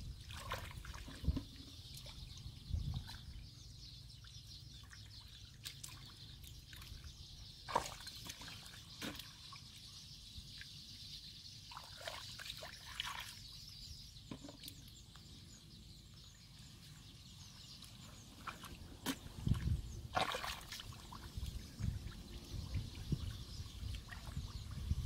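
Hands and feet sloshing and splashing in shallow muddy water, with wet squelches and drips. It comes in scattered bursts that grow busier and louder about twenty seconds in and again near the end, over a steady high hiss.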